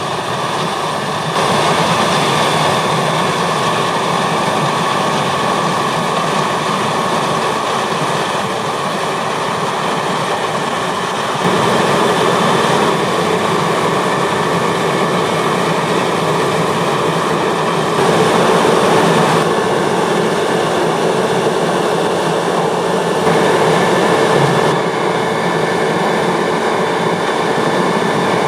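New Holland CR 8.90 combine harvester running while harvesting wheat: a steady engine drone with the rattle and rush of the threshing gear. The level steps up and down abruptly several times.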